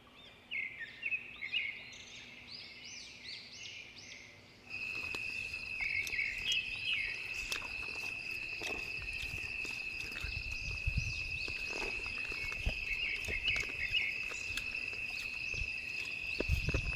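Night insects, crickets, chirping: a run of short repeated chirps at first, then from about five seconds in a louder, steady high-pitched trill, with scattered light clicks and low thumps over it.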